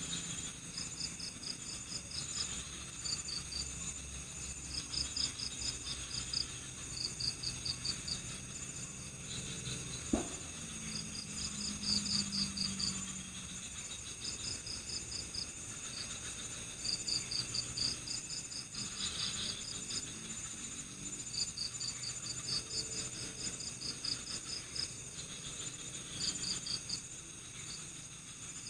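Night-time chorus of crickets chirping: short trains of rapid high pulses repeating every second or two over a steady high insect drone. A single sharp click sounds about ten seconds in.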